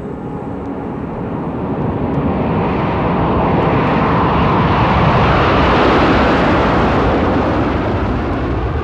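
Jet airplane flying over: a rushing engine noise swells steadily to its loudest about five to six seconds in, then begins to fade.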